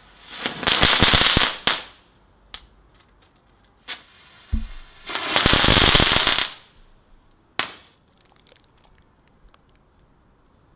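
Small consumer firework going off: two loud hissing, crackling bursts of about a second and a half each, with single sharp bangs between and after them and a few faint crackles near the end.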